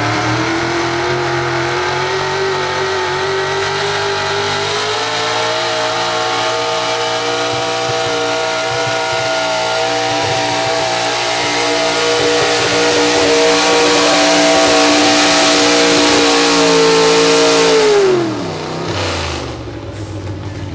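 A modified gas-class 4x4 Ford pickup's engine at full throttle, pulling a weight sled. The pitch climbs at the start and holds high and steady under load, then drops sharply near the end as the throttle comes off and the pull ends.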